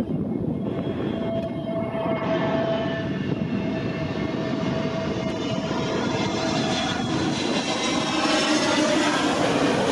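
Airbus A320 jet engines on landing approach, gear down, passing close overhead: a dense rumble with a steady hum, and a high whine that grows louder toward the end as the jet comes nearest.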